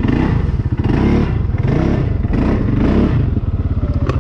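Four-wheeler ATV engine running at low speed, a steady fast putter with small rises and falls in throttle. A single sharp click near the end.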